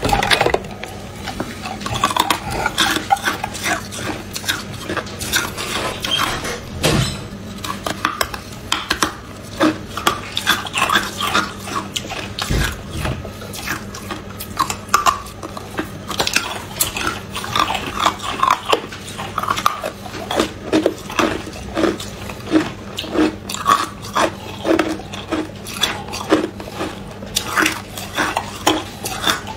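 Hard ice being bitten and crunched in the mouth in short, repeated crunches, coming more regularly in the second half, with pieces of ice clinking against a metal tray.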